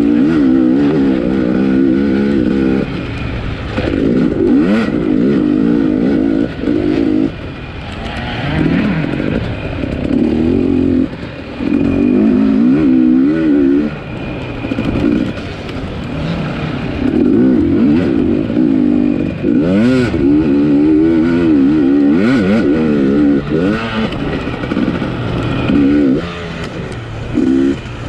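250 cc off-road racing motorcycle engine revving up and dropping back over and over as the throttle is worked, with brief dips when it is shut off. A few sharp knocks come from the bike over rough ground.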